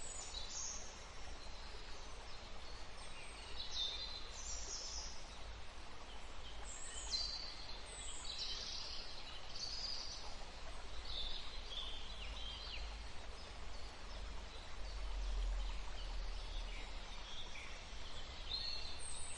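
River flowing with a steady rush, while birds give short, high, downward-sweeping calls every second or so. A low rumble runs underneath, strongest about 15 seconds in.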